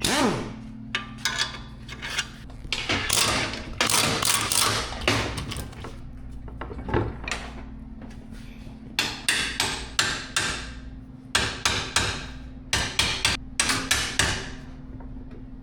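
Hammer striking metal: irregular runs of sharp, briefly ringing blows, some single and some in quick clusters, over a steady low hum.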